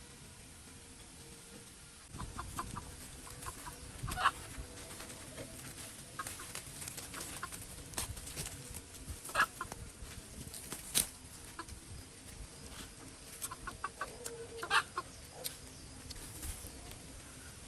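Short animal calls repeated in clusters, the loudest about four, nine and fifteen seconds in, with a few scattered sharp clicks.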